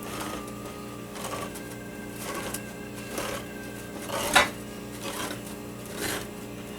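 Can opener cutting around a can lid in short scraping bursts about once a second, the loudest about four seconds in.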